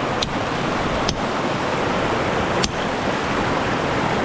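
Steady rush of river water, with three light sharp taps about a second in, near the start and past the middle.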